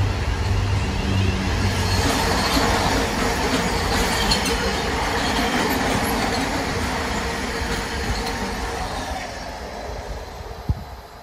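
A London Northwestern Class 350 electric multiple unit runs past close by with a low traction hum, then the wagons of a container freight train roll past on the far line. The rail noise fades away near the end, and a single sharp knock is heard just before it ends.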